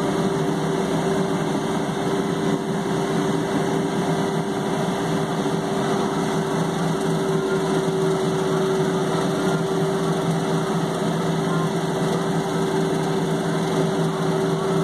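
John Deere 3720 compact tractor's three-cylinder diesel engine running steadily under load, driving a bush hog rotary cutter through tall grass.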